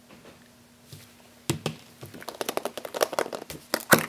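Hollow plastic surprise eggs clicking and clattering against each other as a hand rummages among them and handles one, a quick run of small sharp clicks and rustles starting about a second and a half in.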